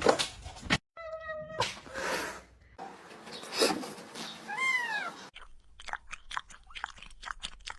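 Cat meowing in short calls, one about a second in and an arching, rising-then-falling one about five seconds in, across abrupt cuts between clips. A run of quick clicks fills the last couple of seconds.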